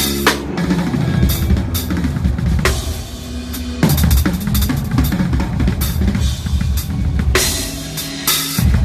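Drum kit played in a fast solo: rapid bass drum strokes under snare and tom fills, with cymbal crashes just after the start, near three seconds in, and again from about seven and a half seconds in.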